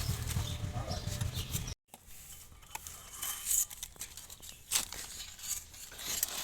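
A steady low hum that cuts off suddenly about two seconds in, followed by scattered sharp clicks and knocks of metal parts and tools being handled.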